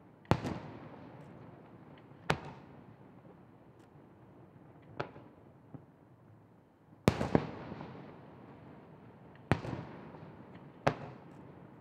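Aerial firework shells bursting, about eight sharp booms at uneven intervals, two close together about seven seconds in. Each big boom trails off in a rolling echo.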